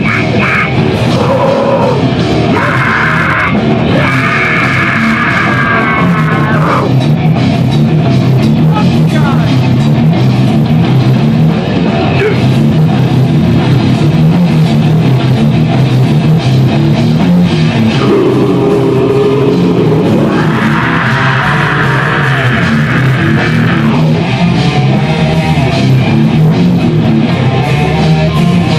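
Loud rock music in a heavy metal style: electric guitars over a drum kit, playing without a break.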